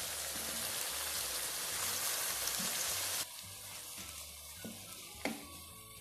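Sliced potatoes, tomato and onion sizzling in hot oil in a kadhai, a loud steady sizzle that cuts off abruptly about three seconds in. Then it is quieter, with two knocks of a spatula against the pan near the end, the second one sharper.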